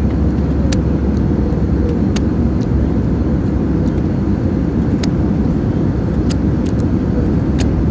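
Steady in-flight cabin noise of an Airbus A319: a loud, even rush of engine and airflow sitting low in pitch, with a few faint clicks over it.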